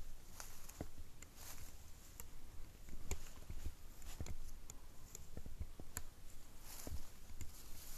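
Footsteps through leaf litter: irregular crunching and rustling steps, with a low rumble underneath.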